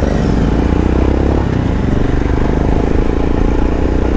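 Royal Enfield Himalayan's air-cooled 411 cc single-cylinder engine running steadily while the motorcycle is ridden at an even speed.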